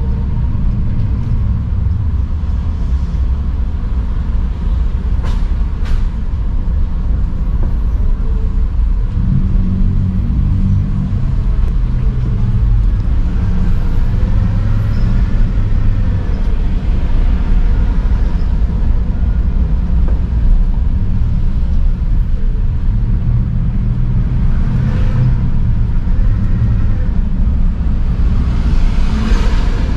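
City street traffic: a steady low rumble of passing cars and buses, with a couple of brief hisses in the second half.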